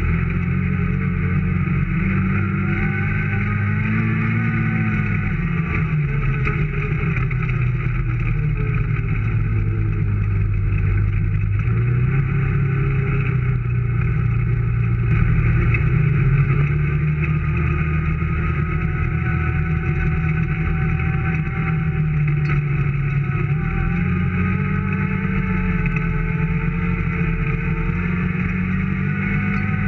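Vehicle engine running continuously, its pitch slowly rising and falling as the throttle and speed change while driving off-road.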